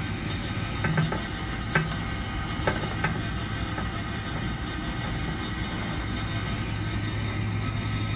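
Steady low machine hum, with a few light clicks and taps between about one and three seconds in.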